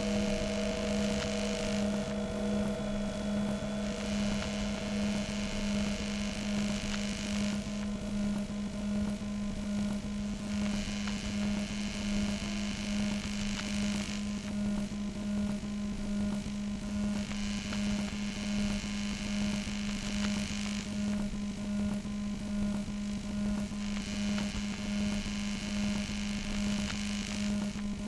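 Lowercase ambient musique-concrète piece: a steady low drone like a hum, with a fainter higher tone above it. A hiss comes in and cuts off in blocks of about three and a half seconds, roughly every seven seconds.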